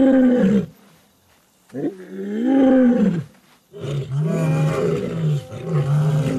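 Lions roaring: two long moaning roars that rise and fall in pitch, then from about four seconds in a run of shorter, repeated calls, about two a second.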